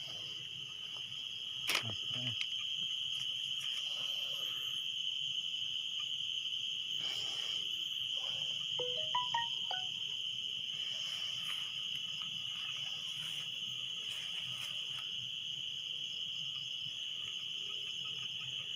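Steady, high-pitched chorus of insects trilling without a break. A single sharp click comes about two seconds in, and a few short faint chirps sound near the middle.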